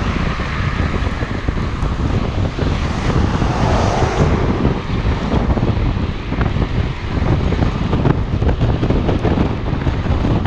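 Wind buffeting the microphone of a camera on a moving recumbent trike, over a steady rumble of tyre and road noise, with a car passing close by at the start.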